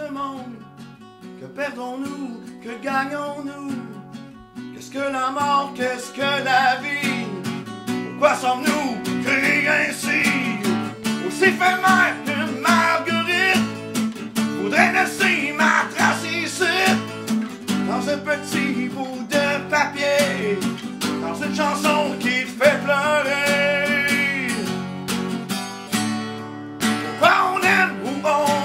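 A man singing a French song and accompanying himself on a strummed acoustic guitar.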